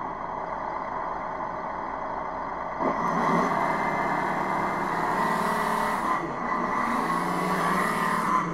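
Tamiya 1/16 M551 Sheridan full-option RC tank's onboard sound unit playing a simulated engine, running steadily and then getting louder and rougher about three seconds in as the tank drives off across the carpet.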